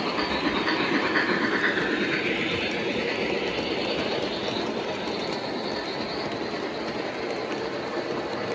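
S-scale model passenger train rolling past on metal track: a steady rattle and rumble of wheels on the rails that slowly fades as the train moves away.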